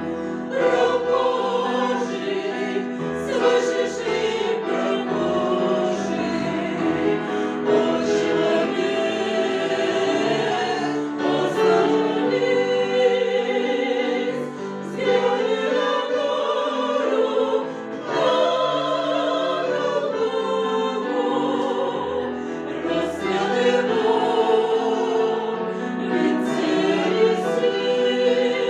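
Choir singing in harmony, several voice parts holding and moving between notes together.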